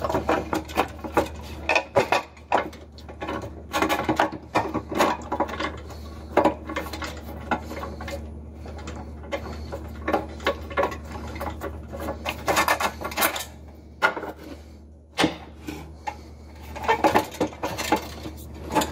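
Nut driver loosening the nuts that hold a fluorescent fixture's ballast: irregular metallic clicks, scrapes and rattles against the sheet-metal fixture housing, with a short pause about two-thirds of the way through.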